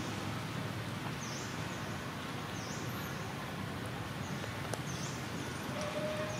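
Tree-canopy ambience: a steady background hiss with a short high call repeating about once a second. A single held mid-pitched note starts near the end.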